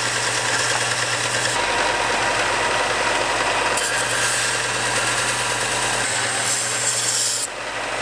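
Benchtop belt sander running with a thin metal exhaust tube held against the belt, grinding its end flat: a steady rasping hiss over the motor's hum. The grinding drops off briefly near the end as the piece is lifted.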